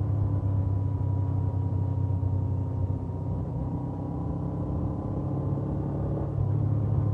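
Suzuki GS500F's air-cooled parallel-twin engine running through its stock exhaust under way, with a steady thin whine over the engine note. It eases off a little through the middle and gets louder again about six seconds in as the throttle opens.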